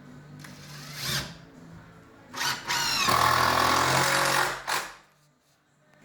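An electric power tool spins up with a rising whine about a second in, then runs loud for about two seconds and stops suddenly.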